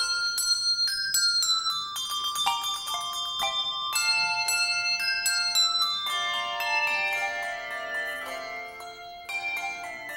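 Handbell choir playing a tune: struck bell notes and chords that ring on and fade, one after another, with a run of falling notes a few seconds in.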